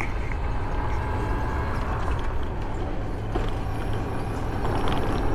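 ATV engine running steadily while riding, with a continuous low rumble and wind buffeting on the microphone.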